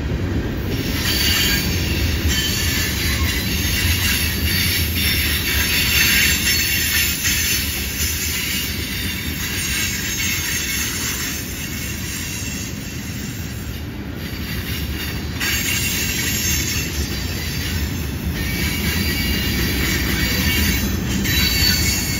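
Freight cars of a long mixed freight train rolling past on a curve: a steady low rumble of wheels on rail with high-pitched wheel flange squeal. The squeal eases off around the middle and comes back in the last few seconds.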